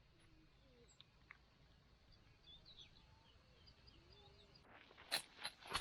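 Faint outdoor background with a few soft bird chirps, then a handful of sharp clicks or knocks near the end.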